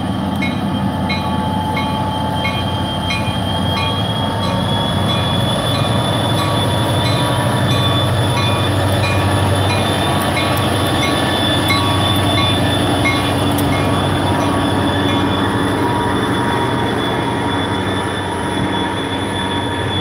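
EMD SD40-2 diesel locomotive rumbling past a grade crossing, then loaded freight cars rolling by with a steady high-pitched wheel squeal. A mechanical crossing bell rings about twice a second and fades out about two-thirds of the way through.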